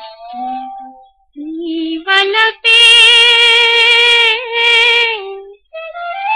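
A female playback singer's voice in an old Telugu film song. She sings a short rising phrase, then holds one long note with a slight vibrato for about two and a half seconds before it falls away. Near the end a flute comes in with a rising line.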